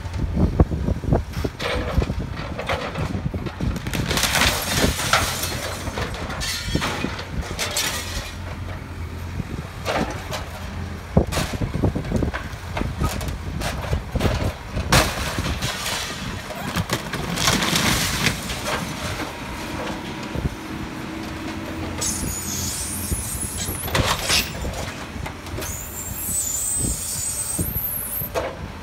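Caterpillar backhoe loader's diesel engine running under load while its backhoe bucket tears down a timber-framed building: repeated crashes and cracking of splintering wood and boards. High-pitched screeching comes in twice near the end.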